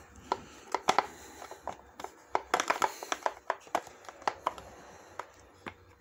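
Hard plastic clicking and tapping from an LG washer's detergent dispenser drawer being handled, as the bleach cup is lifted against the retaining tabs at its back. The clicks come irregularly, bunched around the first second and again from about two and a half to four seconds in.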